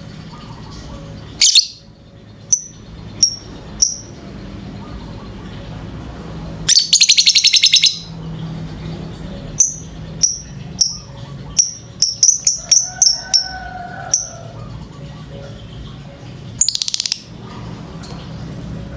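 Lovebird in breeding condition calling: sharp, high-pitched chirps, some single and some in quick runs. There are two rapid rattling trills, a longer one about seven seconds in and a shorter one near the end.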